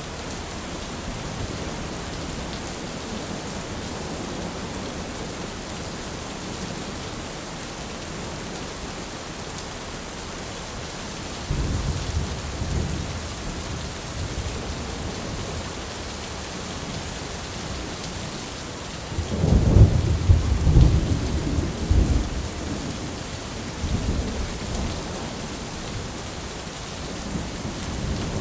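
Thunderstorm: steady heavy rain throughout, with a low rumble of thunder about eleven seconds in and a louder, longer peal of rolling thunder about twenty seconds in.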